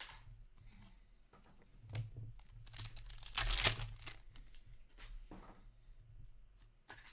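Trading cards clicking and sliding in the hands, then a foil hockey card pack wrapper torn open about three seconds in, the loudest sound here, with crinkling.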